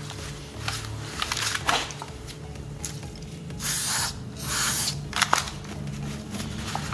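Aerosol throttle body cleaner sprayed in two short hissing bursts about halfway through, with light handling clicks and rustles around them.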